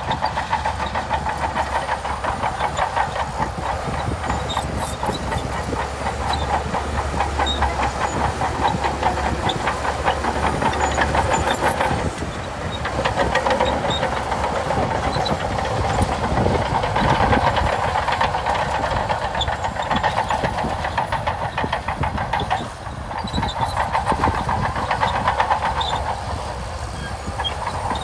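Shantui DH17C2 crawler bulldozer working, its engine running steadily under a fast, even clatter of steel tracks, with brief dips in level about twelve and twenty-three seconds in.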